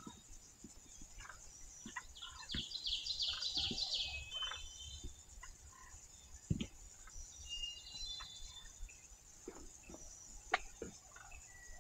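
Eastern wild turkey gobbling, a rapid rattling call about two to four seconds in, with scattered small clicks through the rest.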